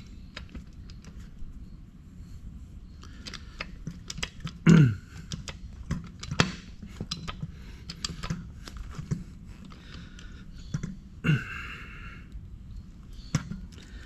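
Handling noise of a heavy battery cable and its copper lug being fitted into the die of a hydraulic crimper: scattered clicks and knocks. Two or three short low sounds that slide down in pitch stand out, the loudest about five seconds in, another about eleven seconds in.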